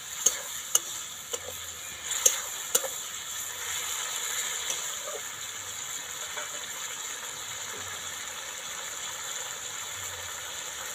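Metal spatula knocking and scraping against a metal kadai about five times in the first three seconds as ivy gourd is stirred into the masala, then steady sizzling of the curry in the pan.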